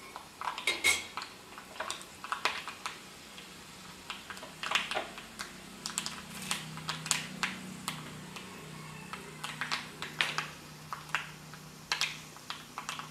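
Mustard seeds and urad dal spluttering in hot oil during tempering: sharp, irregular pops and crackles, a few a second. A faint steady hum sets in about four seconds in.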